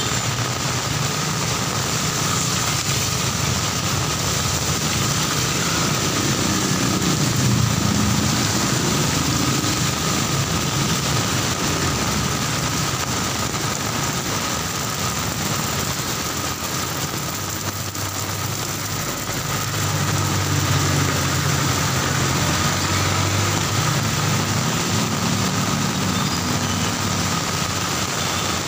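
Heavy rain falling on a wet city street, a steady loud hiss, with the engines of passing cars and motorcycles swelling and fading several times under it.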